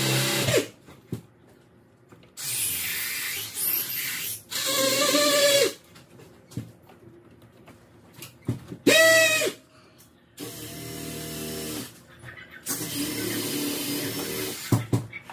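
Power drill run in several short bursts, each spinning up and winding down as the trigger is pressed and let go, drilling holes in an electrical panel cover.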